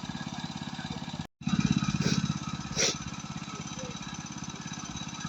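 A small engine running steadily with a fast, even chug. The sound cuts out for an instant about a second in and resumes louder, with two short sharp noises over it soon after.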